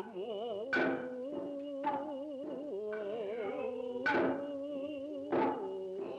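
Noh chanting held with a slow, wavering vibrato, punctuated by four sharp drum strikes from the Noh ensemble, about a second, two seconds, four seconds and five and a half seconds in.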